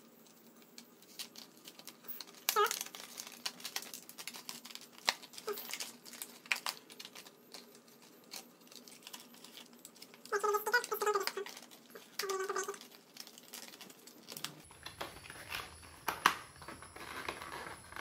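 Fingers handling and picking at a RAM retail box, giving scattered clicks, scratches and crinkling as a fingernail works at the barcode seal sticker that keeps the box shut. A few short murmured voice sounds come about ten to thirteen seconds in.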